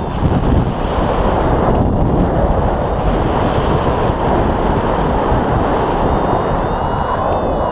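Airflow buffeting the open microphone of a camera on a paraglider in flight: a loud, steady wind rush, with a faint high whistle running over it.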